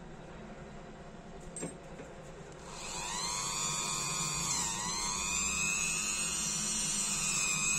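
Handheld rotary tool spinning a small wire brush wheel against a tiny brass lighter part: a high-pitched whine that starts about three seconds in. It sags in pitch briefly, then holds steady. A single click comes shortly before it starts.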